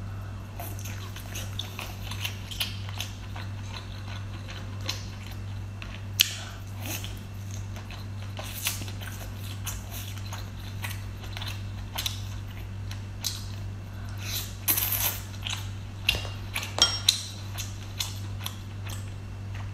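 Close-miked eating of king crab legs: irregular wet biting, sucking and chewing sounds as the meat is pulled from the shell, with a few louder bursts of clicks near the end. A low steady hum runs underneath.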